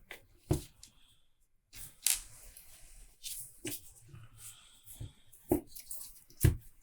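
Handling noise from a cordless impact wrench being taken apart: its housing and internal parts clicking and knocking as they are moved and set down, about five sharp knocks spread over several seconds with quiet rustling between.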